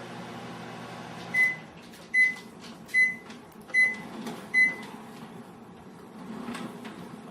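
Five short, evenly spaced electronic beeps at one high pitch, about 0.8 seconds apart, from an appliance or device beeper.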